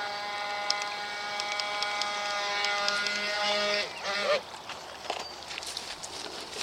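Steady, unchanging whine of an RC boat's electric motor running at constant throttle, which cuts off a little under four seconds in; a short wavering tone and a few small clicks follow.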